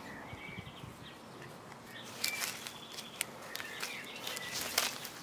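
Quiet garden ambience with faint, short bird chirps. From about two seconds in there is a run of sharp rustles and clicks.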